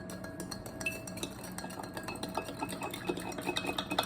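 Light, irregular clicks and clinks of small items being handled on a table, over a faint steady hum.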